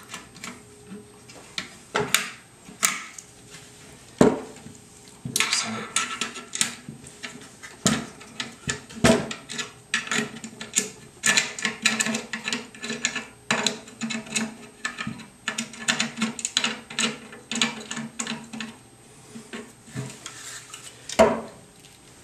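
Metal clicking and rattling of a flip-up sight being moved back along a Picatinny rail and clamped in place: many small sharp clicks and taps, with one louder knock near the end.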